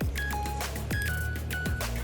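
Background electronic music with a deep bass, a kick drum and short high synth notes.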